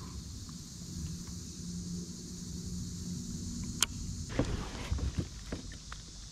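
Baitcasting reel being cranked on a retrieve, a steady low whir. About four seconds in there is a sharp click, then a few knocks and bumps.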